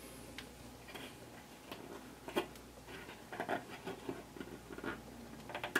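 Faint, irregular small clicks and taps of a plastic Train-Tech BL1 buffer light being handled and worked into place between the rails of OO gauge model railway track. The clicks are busiest a little past halfway and again near the end.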